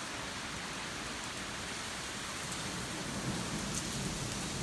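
Storm wind and rain rushing through trees, a steady noise that grows stronger about three seconds in, with a few sharp ticks near the end.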